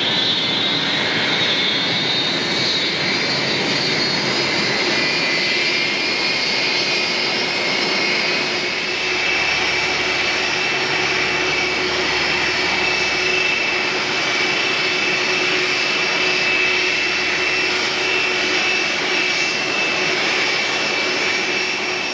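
Jet airliner engines running loudly with a steady roar and a high whine. The whine's pitch climbs over the first few seconds, then holds steady.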